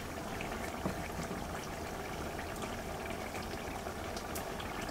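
Pumpkin curry simmering in a metal wok, a steady faint bubbling with a few small ticks.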